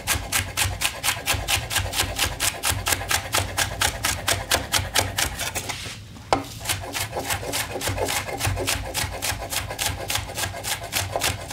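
Large kitchen knife finely slicing a scallion on a wooden chopping board: a quick, even run of chops about five a second, with a brief pause about six seconds in.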